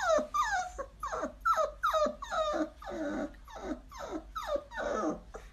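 Husky puppy whining in a rapid string of short yelps, each falling in pitch, about three a second.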